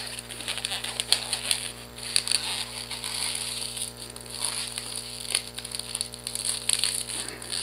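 A long latex twisting balloon being squeezed and twisted by hand: the latex rubbing against the fingers and itself, with many small irregular clicks.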